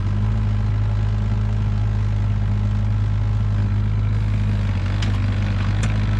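Mini excavator's engine running steadily, with a few sharp metallic clicks or knocks late on.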